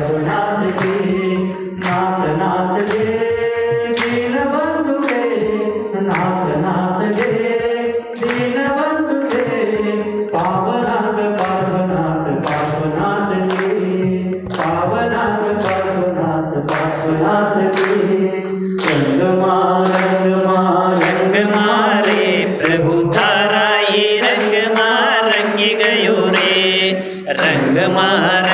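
A man sings a devotional Hindi bhajan through a microphone and PA, with the crowd clapping a steady beat in time with the song.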